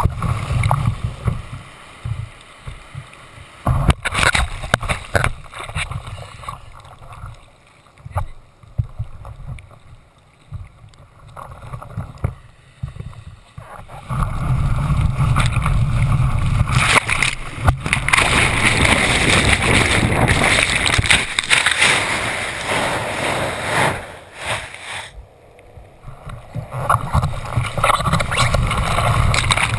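Ocean surf breaking and sloshing around a camera held at the water line, with water splashing over it. Quieter and duller for several seconds in the first half, then loud, continuous churning water through most of the second half.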